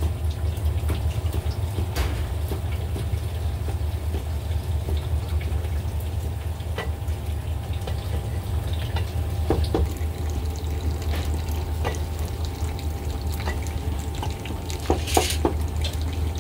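Scattered knocks of a steel cleaver on a round wooden chopping block and clicks of food going into plastic bowls, over a steady low hum of kitchen background, with a cluster of knocks near the end.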